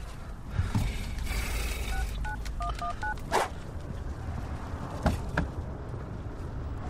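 Phone keypad tones as a number is dialled: about five short beeps in quick succession, a couple of seconds in, over a steady low rumble. A thump follows just after, and two clicks come later.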